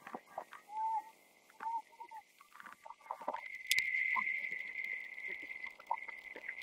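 Field hockey match ambience: scattered faint clicks and two short distant calls in the first couple of seconds, then a single sharp crack just before four seconds in, after which a steady thin hiss sets in.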